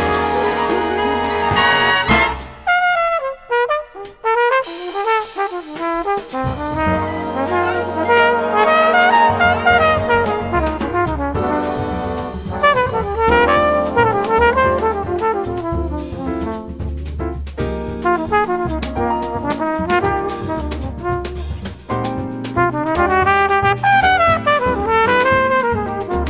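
Jazz big-band music led by trumpets and trombones over a drum kit, thinning to a sparser line for a few seconds near the start before the full ensemble comes back in.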